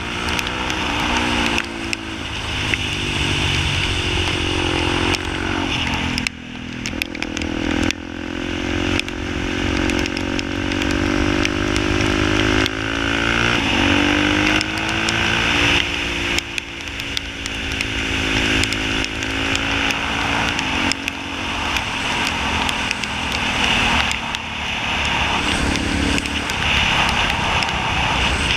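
Motorcycle engine heard from the bike's own onboard camera, running at speed on a race track. The engine note repeatedly climbs in pitch and then drops back as the rider accelerates out of bends and backs off for the next.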